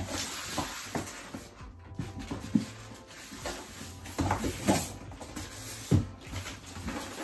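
Cardboard box and styrofoam packing scraping, rubbing and knocking as a sewing machine in its foam packing is pulled out of its shipping box. The sharpest knocks come about four and six seconds in.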